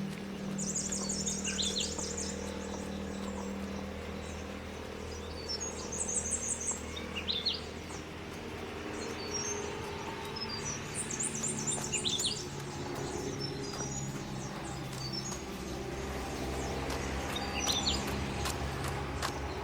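A songbird singing short high trilled phrases, four times, over the steady low hum of an engine running.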